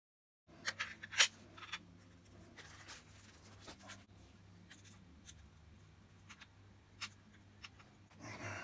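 Small hard clicks and clinks of screws and parts being handled on an RC monster truck's chassis while a front chassis brace is fitted. A cluster of sharp clicks about a second in is the loudest, followed by scattered light ticks and a brief rustle near the end.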